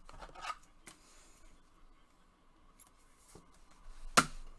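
Panini Obsidian football trading cards handled by gloved hands, sliding against each other as the next card is pulled to the front: faint rustles and small clicks, with one sharp click a little past four seconds in.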